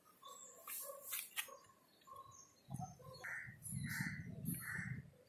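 Crows cawing, three harsh caws in quick succession in the second half, over a low rumble that starts about halfway through, with a few faint bird chirps earlier.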